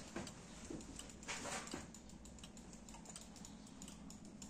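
Faint, scattered light clicks and a brief rustle over a low steady hum.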